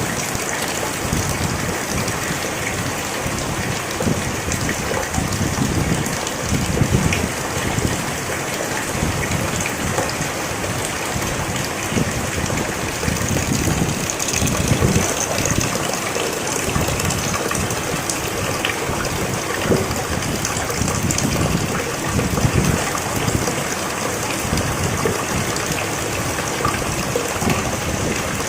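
Steady rain falling on a hut roof: an even hiss of rain, dotted with countless small drop ticks.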